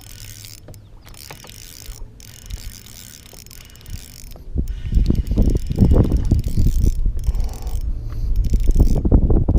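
A fishing reel being cranked: quiet at first, then from about halfway through a fast, loud run of rattling, ratcheting clicks as line is wound in.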